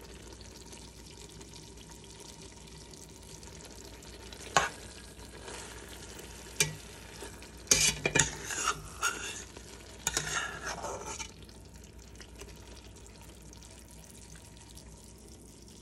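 Metal spatula scraping and knocking against a steel pot while curry is dished out, with a few sharp scrapes and taps between about four and eleven seconds in, over a steady low background hum.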